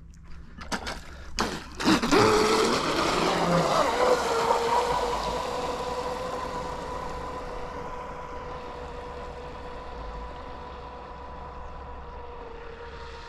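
Pro Boat Blackjack 24 catamaran's stock 2200 kV brushless motor under full throttle on a speed run: a high, steady whine that starts suddenly about two seconds in with a rush of water noise. It climbs a little in pitch as the boat gets up to speed, then holds one pitch and slowly fades.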